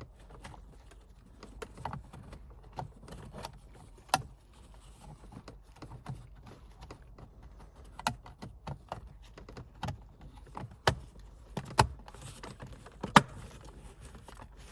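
Irregular clicks and knocks of hard plastic parts being handled and fitted: the back cover being pressed onto the steering column switch module, with the sharpest click near the end as it clips on.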